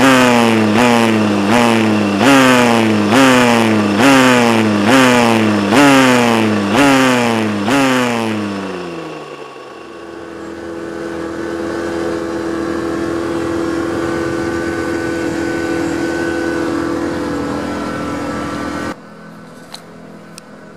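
Honda NSR250R (MC21) two-stroke V-twin on a dyno, its revs jumping up and sliding back about once a second while the engine note falls overall and dies away about nine seconds in. After that, steady held tones continue until a drop in level at about 19 seconds.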